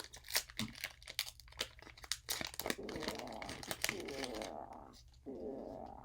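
Foil Pokémon booster pack being crinkled and torn open by hand, a dense run of crackles, followed by a softer, steadier sound from about three seconds in.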